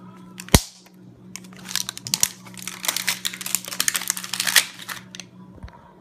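A sharp knock about half a second in, then a few seconds of paper crinkling as white paper wrapping is pulled off a boxed Zippo lighter.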